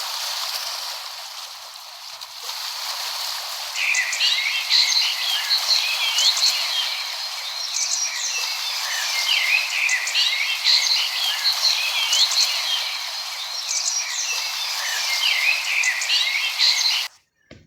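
A chorus of frogs calling, many short chirping calls overlapping over a steady hiss. The calls start about four seconds in and all the sound cuts off abruptly near the end.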